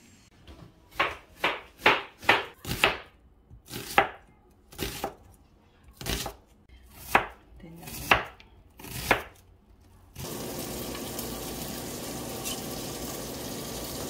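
A kitchen knife chopping on a cutting board: about a dozen separate, unevenly spaced strokes. About ten seconds in the strokes stop and a steady hiss takes over.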